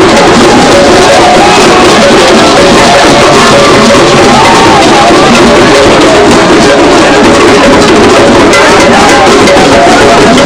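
Loud music of drumming with many voices singing, over crowd noise.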